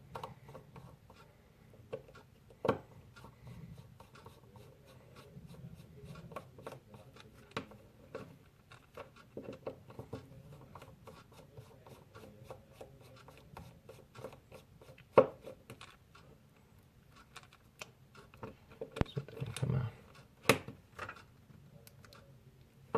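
Light clicking and scraping of a T3 Torx precision screwdriver turning tiny screws out of a Fitbit Blaze smartwatch's back cover. There are a few louder clicks, the loudest about fifteen seconds in.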